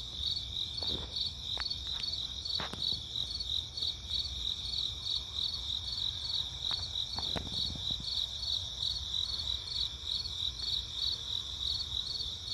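Crickets chirping in a steady, high-pitched pulsing chorus of about three to four pulses a second, with a few faint ticks mixed in.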